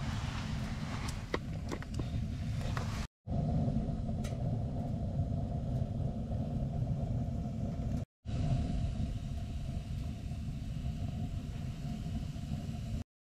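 Wood fire burning in a camp wood grill: a steady low rumble, with a few sharp crackles or clicks in the first few seconds.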